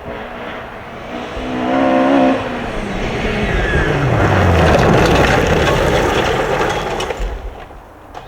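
Rally car at speed on a special stage: the engine revs climb, then its note falls as the car passes. A loud spell of tyre and road noise follows and dies away about seven seconds in.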